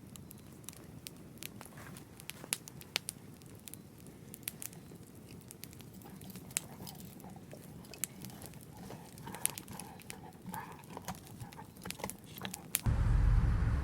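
Scattered drops tapping irregularly, a few at a time, then a loud low rumble of thunder breaks in suddenly near the end.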